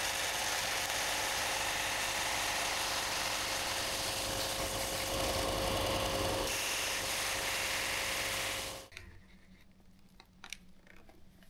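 Belt sander running while the end of a white plastic cable channel is sanded to a miter against its fence: a steady whir with a faint hum. The sound stops abruptly about nine seconds in, followed by a few faint clicks.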